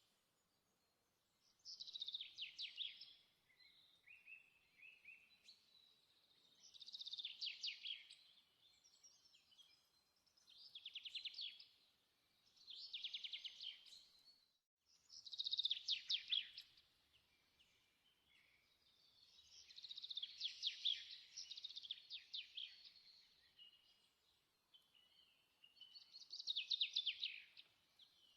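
A songbird singing short, fast-trilled high phrases, seven in all, each a second or two long with pauses of a few seconds between them.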